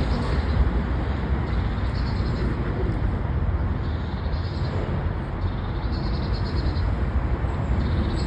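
Steady outdoor background noise with a heavy low rumble, and short high chirps every second or two.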